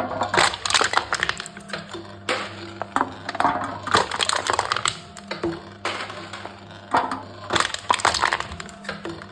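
Aluminium cans crinkling and crackling as a crushing machine flattens them, in three bursts of crumpling metal.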